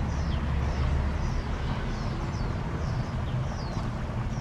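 A bird chirping in short high falling notes about twice a second, over a steady low rumble that is strongest in the first second.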